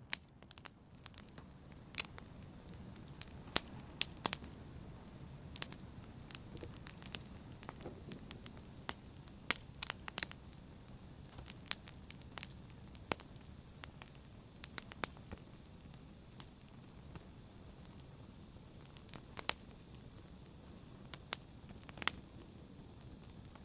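Wood fire burning in a fireplace: irregular crackles and sharp pops over a low steady hiss of the flames.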